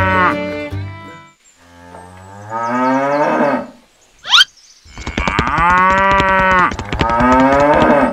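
Cattle mooing several times in long, drawn-out calls, one after another. A short, sharp rising whistle-like sweep cuts in between the calls about four seconds in.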